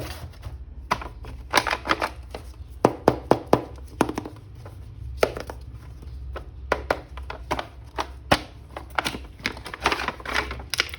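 Hands unpacking a plastic action figure: irregular sharp clicks and taps of plastic packaging and toy parts, over a low steady hum.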